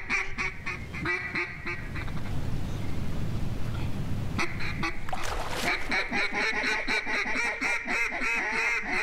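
Mallard duck calls blown in rapid strings of quacks, about five a second, to work circling mallards. The calling breaks off for a couple of seconds, then comes back denser and louder, with several strings overlapping from about five seconds in.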